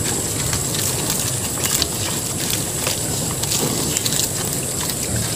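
Native pigs eating fresh madre de agua leaves off the ground, small crunching and snuffling clicks scattered over a steady outdoor hiss.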